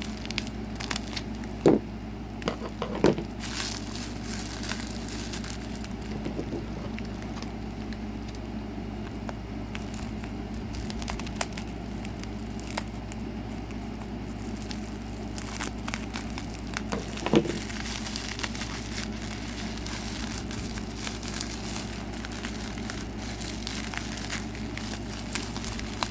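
Packaging being unwrapped by hand: wrapping crinkling and crackling with tearing, irregular and ongoing, with a few sharper knocks, the loudest about two and three seconds in and again around seventeen seconds.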